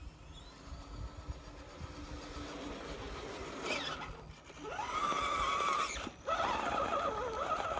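Electric drive motor of an RC-converted Tonka dump truck whining as it drives on concrete. About halfway through it spins up with a rising whine, holds a wavering pitch, cuts out for a moment and picks back up.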